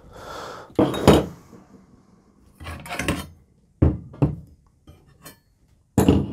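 Metal pieces clinking and knocking against one another and the work surface as they are handled and set down: a string of separate knocks and short clatters.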